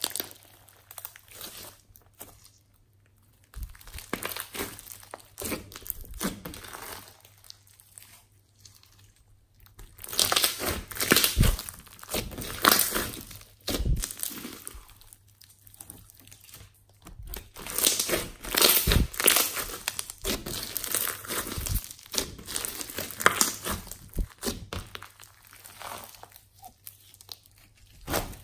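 Hands squishing and stretching sticky slime packed with foam beads, giving irregular bursts of crinkling and crackling. There are two short lulls, one a couple of seconds in and one about a third of the way through.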